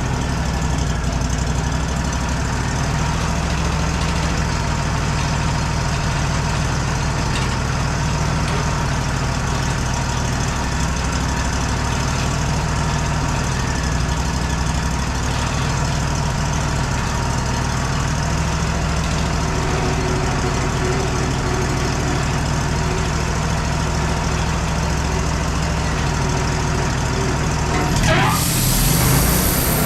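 Wood-Mizer LT40 band sawmill's engine running steadily, its pitch wavering slightly. About two seconds before the end the sound changes abruptly and becomes louder, with a strong hiss.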